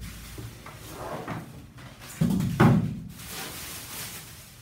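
Unpacking noises: plastic film rustling and crackling, with two dull thumps in quick succession a little over two seconds in as the polystyrene packing pieces and the wrapped mini oven are handled and set down.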